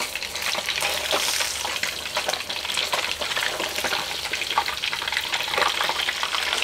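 Snakehead fish deep-frying in a wok of hot oil, sizzling with a steady crackle of small pops, while a spatula scrapes the wok as the fish is turned.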